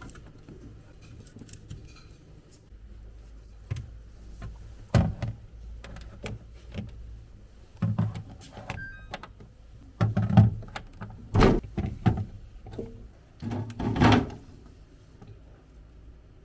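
Groceries being handled and put into a fridge: irregular knocks, thuds and clicks of items and the fridge door, the loudest about five seconds in and in a cluster between ten and fourteen seconds in.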